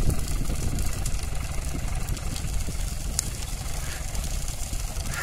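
Small orchard tractor's engine running steadily, with scattered sharp crackles from a burning pile of pruned olive branches.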